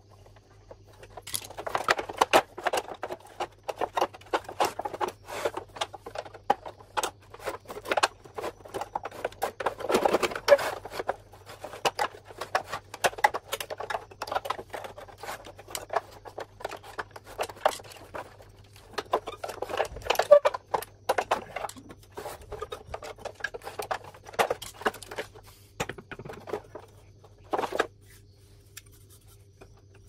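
Hands and a screwdriver working on a split air-conditioner's indoor unit: irregular clicks, knocks and scrapes of plastic and metal parts as screws are undone and the cross-flow blower wheel and fan motor are taken out. The handling noise thins out near the end.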